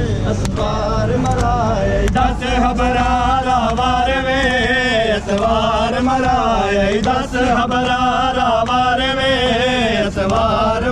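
Men chanting a Punjabi noha, a Muharram mourning lament, in long melodic phrases with a wavering pitch and short breaks between lines.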